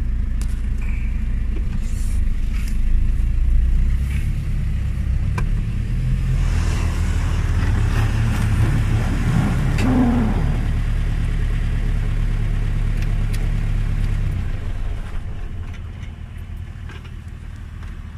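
Off-road 4x4's engine working hard on a steep dirt climb, revs shifting up and down in steps, with a rougher, noisier stretch in the middle; it eases off and gets quieter about fourteen seconds in.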